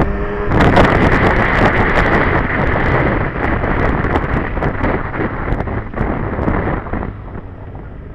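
Wind buffeting the microphone on a moving sport motorcycle, with the bike's engine running underneath. The noise dies down over the last few seconds as the bike slows.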